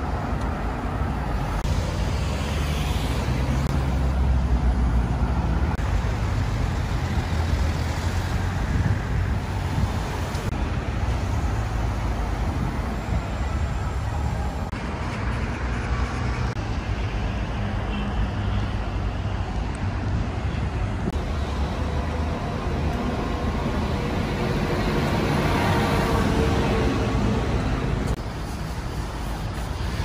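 City road traffic: cars passing on a busy multi-lane road with a steady low rumble of engines and tyres.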